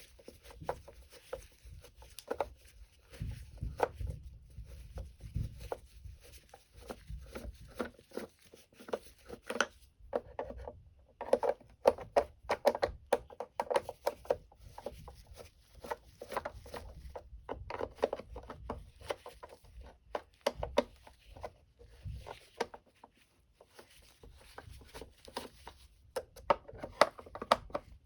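Hands handling the parts of a partly dismantled Oreck XL9100 upright vacuum: many irregular clicks, taps and knocks, with a short pause a little before the middle.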